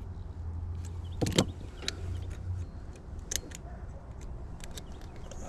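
A few sharp metal clicks and knocks from tools and parts being handled, the loudest about a second in, over a low steady hum that stops about two and a half seconds in.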